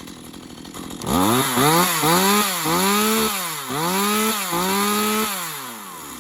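A STIHL MS211 two-stroke chainsaw idling, then revved in a quick series of throttle blips, its pitch climbing and dropping again and again for about four seconds. It then settles back to idle, warmed up after a cold start on choke.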